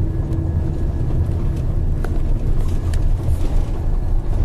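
Steady low engine and road rumble heard from inside a moving bus, with a faint steady hum and a few light ticks.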